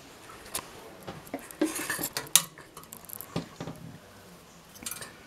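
Light clicks, knocks and clinks of a diecast metal model airliner and its packaging being handled and set down on a wooden tabletop. The knocks are thickest a little before the middle, with one sharp loudest knock just after two seconds in, and a few more near the end.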